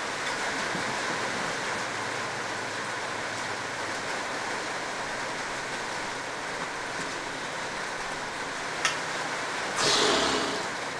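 Steady hiss of rain on the workshop roof. A little before the end comes a single sharp click, then a brief louder rustle as the fork and wheel are handled and lifted.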